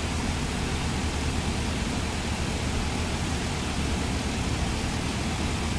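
Steady rushing background noise with no distinct events, heaviest in the low end.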